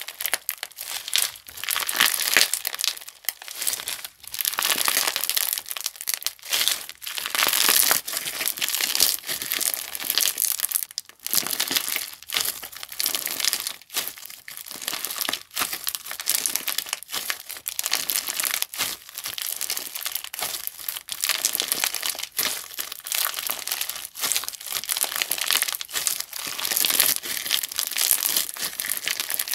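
Crunchy slime being squeezed and pressed by hand, giving a dense run of tiny crackling, crinkling pops. Short pauses come between the squeezes.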